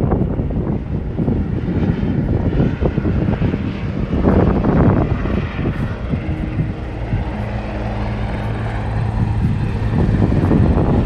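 Sightseeing helicopter coming in to land, its engine and rotor noise steady and fairly loud, with a steadier hum appearing about six seconds in.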